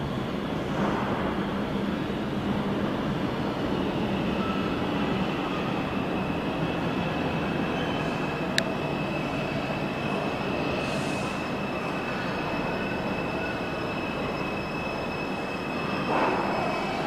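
R142 subway train rolling into the station through the tunnel, a steady rumble of wheels on rail. A high, steady wheel squeal joins about six seconds in, with one sharp click a little past halfway, and the sound swells near the end as the front car reaches the platform.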